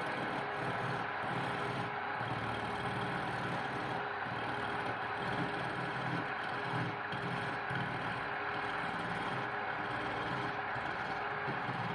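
Wood lathe running steadily: a constant motor hum with an even hiss over it.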